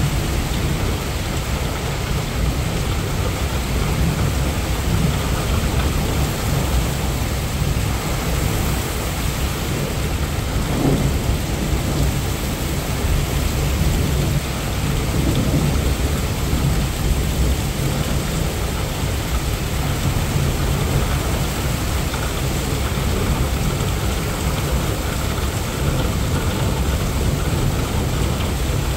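Heavy rain pouring down steadily, with a continuous low rumble of thunder underneath and no sharp thunderclap.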